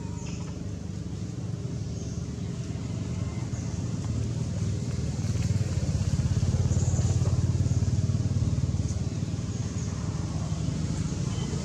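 A motor engine running steadily, growing louder toward the middle and then easing back.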